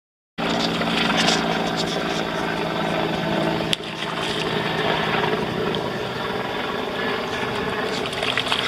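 An engine or motor running steadily at an even speed. It cuts in abruptly, with a sharp knock about a third of the way through.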